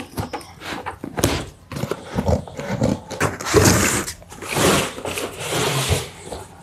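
Scissors snipping through packing tape on a cardboard shipping box, with sharp clicks in the first two seconds. Then cardboard flaps are pulled open and an inner carton scrapes and rustles as it slides out of the box.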